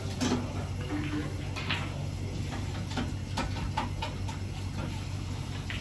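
Snooker balls clicking as they are struck and collide, a few sharp clicks spread irregularly over a steady low hum.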